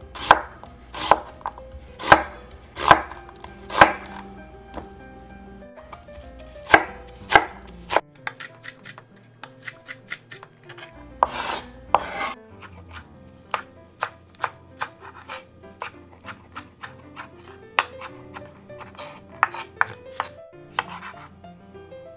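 Chef's knife chopping on a bamboo cutting board: heavy cuts through an onion about once a second, then quicker, lighter strokes as it dices, with a tomato being cut near the end.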